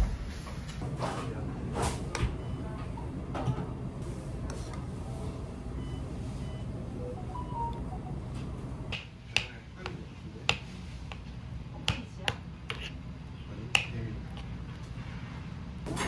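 Scattered sharp clicks and taps, several in quick succession near the middle, over a steady low hum.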